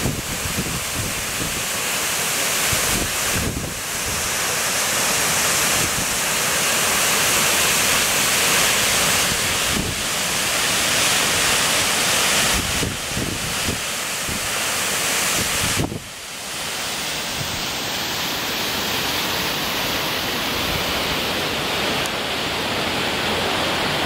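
Steady rush of falling water from the Krimml Waterfalls, partly iced over. Low gusts of wind buffet the microphone through the first part, and after a sudden cut about two-thirds through the rush goes on steadier and without them.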